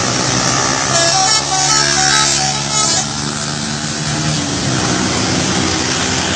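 Bus 'telolet' musical horn playing a quick run of short notes for about two seconds, starting about a second in, over the steady running of the bus's engine.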